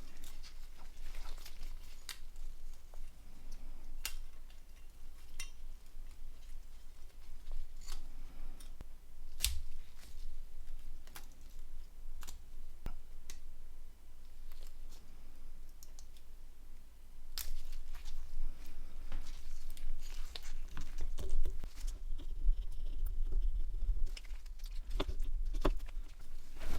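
Scattered light clicks and taps of small plastic phone parts being handled and fitted together, over a low steady hum.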